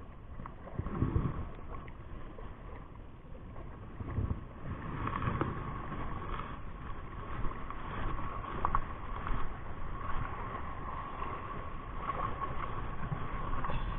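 Sea water washing around shoreline rocks, with low rumbling bumps of wind and handling on a body-worn camera. A faint steady whine runs underneath and grows clearer about a third of the way in.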